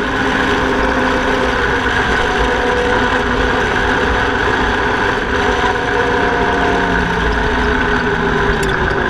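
2013 Yamaha Rhino 700's single-cylinder engine running at a steady speed as the side-by-side cruises along a gravel road, with tyre and road noise underneath.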